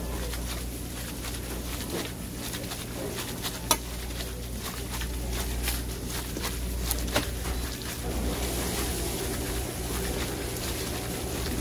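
Cold noodles and red chili sauce being mixed by a gloved hand in a stainless steel bowl: a continuous wet rustling with scattered small clicks and a couple of sharper clicks, over a steady low hum.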